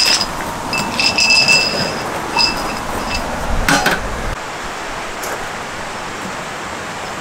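A few sharp clinks of hard objects, each ringing briefly at the same pitch, in the first three seconds, then a single knock near four seconds.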